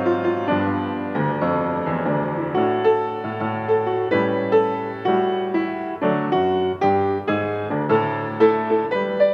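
Solo grand piano playing, melody notes and chords struck about one to two a second and left to ring.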